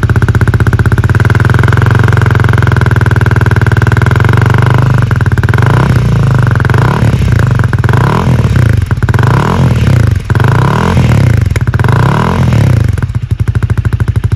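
Honda Rebel 250's single-cylinder engine idling through a TRICK STAR slip-on muffler. About five seconds in it is revved in about six short throttle blips, each rising and falling, and it settles back to idle near the end.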